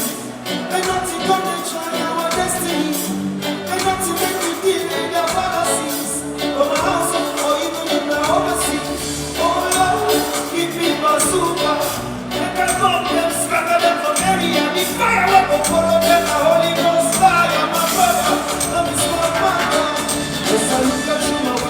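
Live band music with a singer's voice over a steady bass line.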